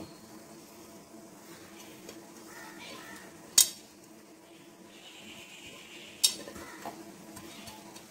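Hands sweeping grated coconut and chopped ingredients across a plate into a steel bowl, with two sharp dishware clinks about three and a half and six seconds in.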